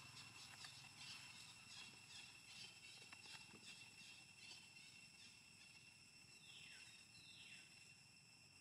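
Faint forest ambience: a steady high buzz of insects, with a run of short chirps for the first few seconds and two falling calls near the end.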